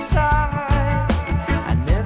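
Reggae background music with a steady beat, a prominent bass line and a held melodic line.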